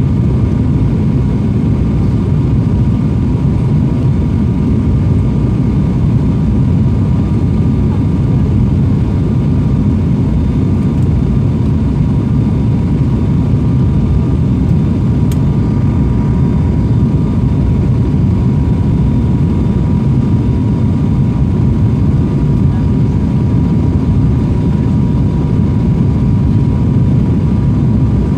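Steady cabin drone of an ATR 72 twin-turboprop airliner in flight: a low engine and propeller rumble with a faint steady whine above it, heard from inside the passenger cabin.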